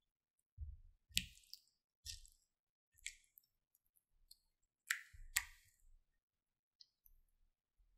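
Thick slime being stirred and folded with a silicone spatula in a glass bowl: faint wet squelches with sticky crackling clicks, roughly one stroke a second. The sharpest two clicks come about five seconds in.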